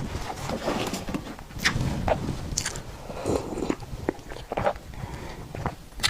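Close-miked eating sounds of a soft tiger skin roll cake being bitten and chewed, with irregular mouth smacks and clicks.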